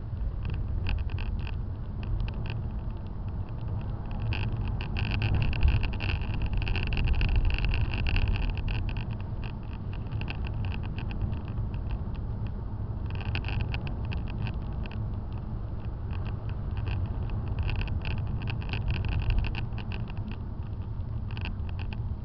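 Car engine and tyre rumble heard from inside the cabin while driving slowly, with a high rattling buzz that comes and goes over the road surface, strongest about five to nine seconds in.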